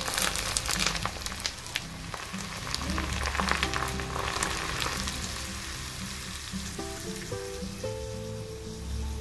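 Hot oil poured from a pan onto roasted mustard seeds, black pepper and ground spices over sliced mushrooms, sizzling and crackling as it hits them. The sizzle is strongest in the first five seconds and dies down after.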